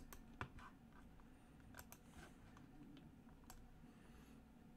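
Near silence: low room tone with a few faint, scattered computer clicks.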